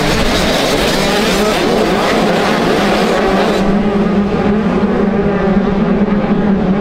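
Motocross bike engines running steadily at an even pitch.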